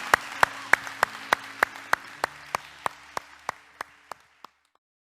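Congregation applauding, with sharp claps standing out at an even pace of about three a second, faint held notes underneath. It all fades away, ending about four and a half seconds in.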